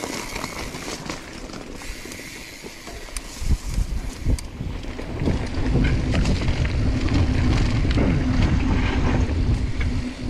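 Mountain bike descending a dry dirt trail: tyres crunching and clicking over dirt and gravel, then wind buffeting the helmet-mounted microphone, building about three seconds in as speed picks up, with a steady low hum under it.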